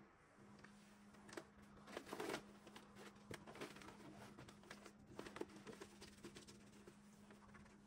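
Faint crinkling and rustling of self-adhesive drawer liner paper being smoothed down by hand inside a wooden drawer, with a few louder rustles about two seconds in and around five seconds. A low steady hum sits underneath.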